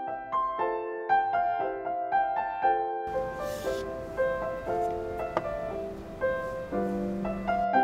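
Gentle background piano music, a soft melody of evenly paced notes.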